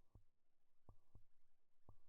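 Faint heartbeat sound effect: soft double thumps (lub-dub), about one beat a second.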